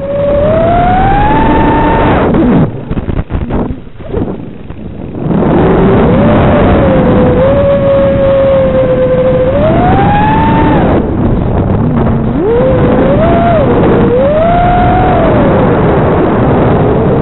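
A 6-inch FPV quadcopter's brushless motors whining over a rough rushing noise, their pitch rising and falling with throttle. About two and a half seconds in the motor note drops away and the sound goes quieter and broken for a few seconds, then the whine returns, holds steady, and swoops up and down several times near the end.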